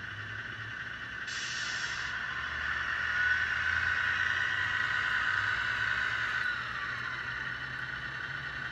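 Radio-controlled Tamiya King Hauler scale truck driving: a steady whine of its electric motor and gears that grows louder as it approaches. There is a short hiss about a second in, and the whine drops in pitch near the end as the truck slows.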